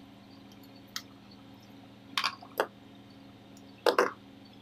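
A sharp click, then short scrapes and rustles of stiff PVC-insulated control wire being bent and routed by hand over contactors, loudest about four seconds in.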